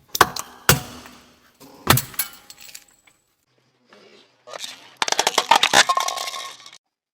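Objects cracking and crunching under a car tyre: a few sharp cracks in the first two seconds, then a dense run of crackling crunches for about two seconds near the end.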